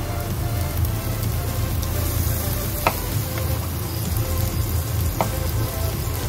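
Vegetables frying and sizzling in a frying pan as sliced vegetables are scraped in off a plate with a wooden spatula, with two sharp taps, about three and five seconds in.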